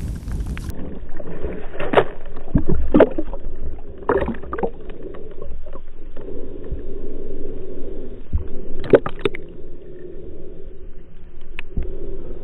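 Water sloshing and lapping around a small boat, with a few sharp knocks scattered through it.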